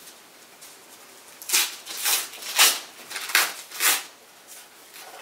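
Paper lining being torn off a telescope tube: about five short ripping sounds roughly half a second apart, starting about a second and a half in.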